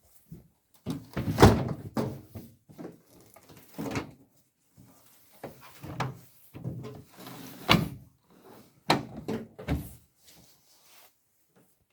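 Heavy steel rail banging around inside a washing machine drum: loud, irregular metal thuds and clanks, one or two a second.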